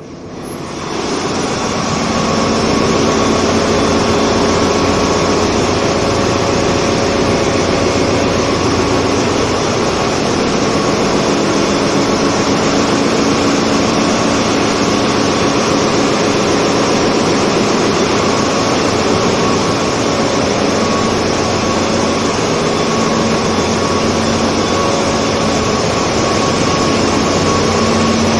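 Loud, steady din of a ship's engine room, with its diesel engines running and a constant hum under the noise. It grows sharply louder over the first two seconds as the door into the engine room opens, then holds steady.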